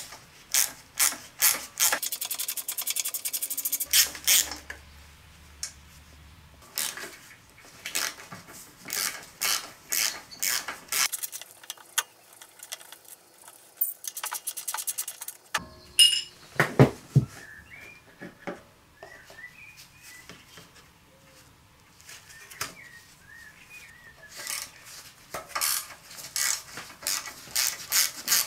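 Hand tools working on a Briggs & Stratton mower engine. A socket ratchet clicks in several quick runs as bolts are turned, with metal clinks of tools and parts in between and a couple of heavier knocks about halfway through.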